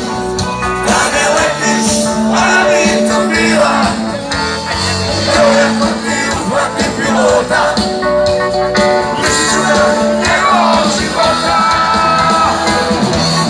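Live rock band playing loudly, with a melodic lead line over bass and drums.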